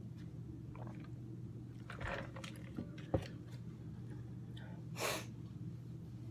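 Close-miked mouth sounds of a person chewing soft food, with a few small wet clicks and a short noisy breath about five seconds in, over a low steady hum.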